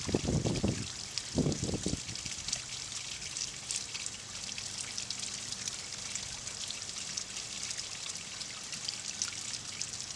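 Water trickling and splashing steadily into a pond, a fine continuous crackle. Two short, louder low sounds come within the first two seconds.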